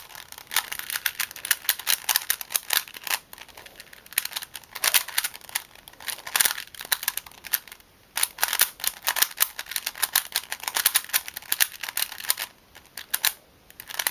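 Plastic speedcube being turned fast in the hands, a quick run of clicking and clacking turns broken by short pauses, about 8 s in and again near the end. It is the mini cube of a timed puzzle relay.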